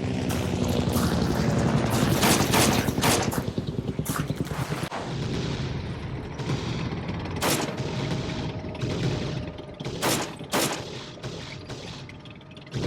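Movie battle soundtrack: bursts of gunfire and sharp impacts over a steady engine drone. The shots come in a cluster about two to three seconds in, then singly, with two close together near the end.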